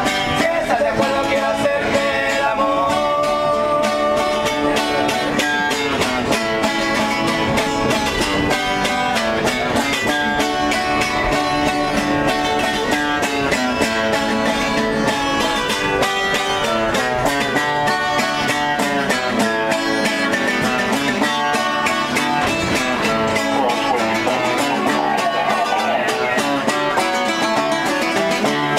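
Mexican singers performing with guitars: plucked and strummed strings under singing voices, a steady run of music with no break.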